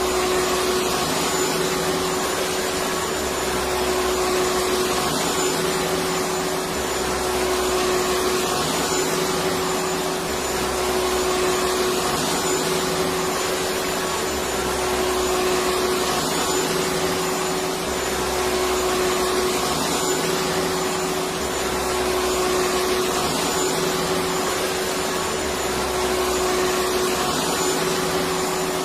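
Electric vacuum cleaner running steadily, a constant rushing hum with a steady whine, under a low rumble that swells and fades about every two seconds.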